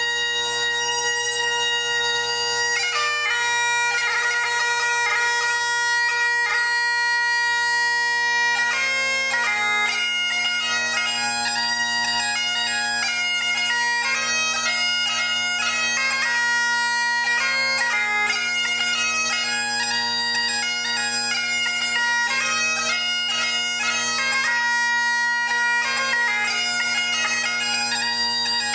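Great Highland bagpipe played solo: steady drones under the chanter, which holds one note for about three seconds and then goes into a quick melody studded with grace notes.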